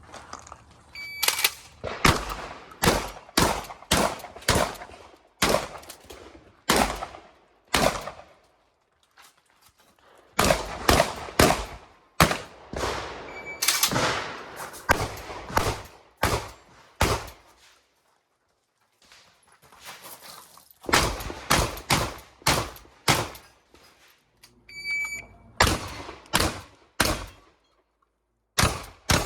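Shotgun fired in rapid succession, in three fast strings of shots with pauses of a few seconds between them.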